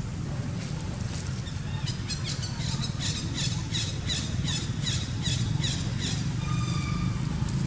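A bird calling a quick series of high falling notes, about three a second, for some four seconds, followed near the end by a short steady call, over a steady low engine-like hum.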